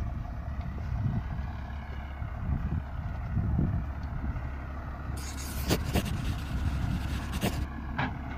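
Heavy diesel earthmoving machinery running steadily with a low rumble, moving along a dirt road, with a hiss starting about five seconds in and a few sharp knocks near the end.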